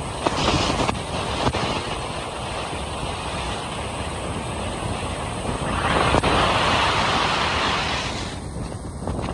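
Wind and road noise of a Jeep Renegade at highway speed, heard from inside the moving car: a steady rush that swells for about two seconds some six seconds in.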